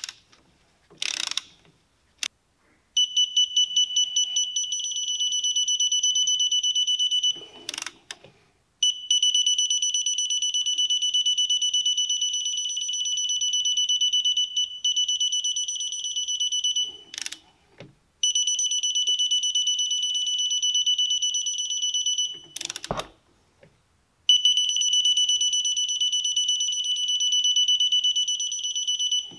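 Ratchet wrench clicking rapidly in long runs of several seconds, with short knocks between them, as a new brake caliper bolt is wound in toward 27 Nm. The bolt keeps turning without seeming to tighten.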